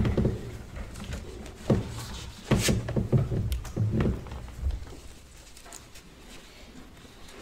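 A few dull knocks and rustles over quiet room tone, clustered between about one and a half and five seconds in: handling noise at a wooden pulpit close to its microphone. The sound then settles to quiet room tone.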